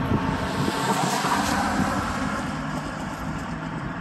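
Diesel locomotives of a Norfolk Southern and CN oil train running, a steady low hum, with a rush of hissing noise swelling about a second in.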